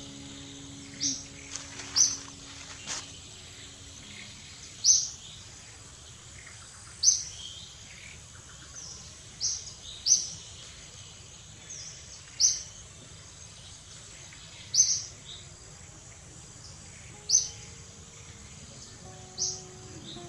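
A bird repeating a short, high chirp about ten times, roughly every two seconds, over steady outdoor background noise.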